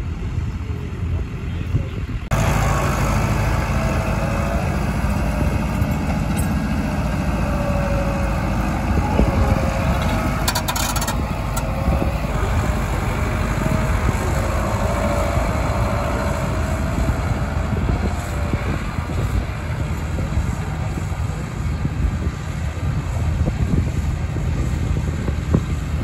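Tractor engine running steadily as the tractor works a mounted reversible plough through stubble, getting louder about two seconds in, with a short rattle about ten seconds in.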